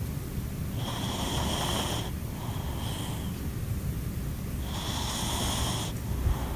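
Norwegian Forest Cat snoring in its sleep, a snore that sounds like a middle-aged man's: two long breaths with a high whistle in them, about four seconds apart, each followed by a shorter, softer breath.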